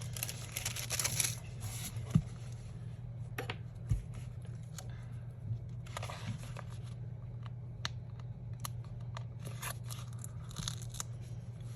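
Wax paper and sticker sheets being handled: short spells of crinkling and tearing, with scattered light taps, over a faint steady hum.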